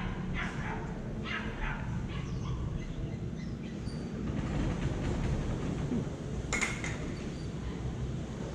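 Steady low background rumble of a city street, with a few short chirp-like calls in the first two seconds and a single sharp click about six and a half seconds in.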